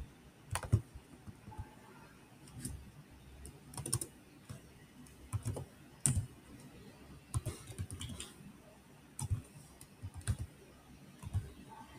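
Typing on a computer keyboard: slow, irregular keystrokes, single or in small clusters, with short pauses between them.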